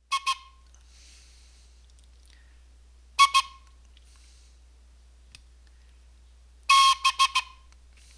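Whistle sounding Morse code in short, clipped toots: two short ones, two more a few seconds later, then one longer toot followed by three short ones.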